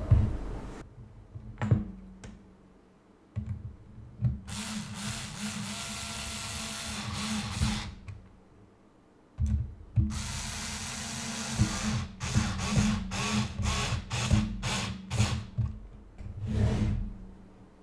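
Black+Decker cordless electric screwdriver driving screws into a computer case. The motor runs for several seconds, stops, runs again for a few seconds, then gives a string of short quick bursts as the screw is snugged down.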